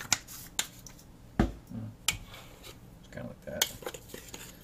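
A few separate sharp clicks and knocks from handling a spice jar and a mixing bowl while baking, the loudest a knock with a low thud about a second and a half in.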